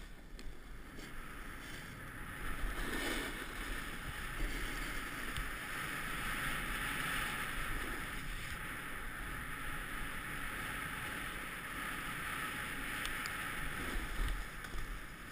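Snowboard sliding down a groomed slope: a steady hissing rush of the board on the snow, with wind buffeting the helmet camera's microphone.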